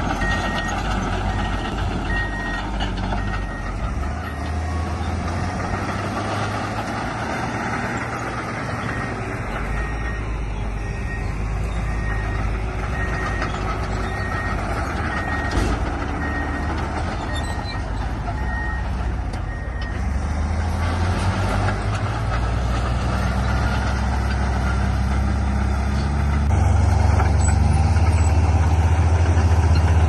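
Reversing alarm on heavy earthmoving equipment giving a steady string of evenly spaced beeps, which stop about two-thirds of the way through. Under it a heavy machine's engine runs continuously and grows louder in the last few seconds.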